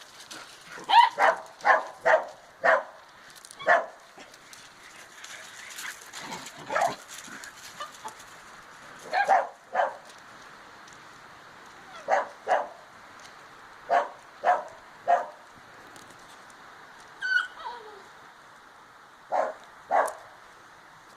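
Dog barking in short bursts of one to a few sharp barks, with pauses of several seconds between bursts, and a single falling whine about two-thirds of the way through.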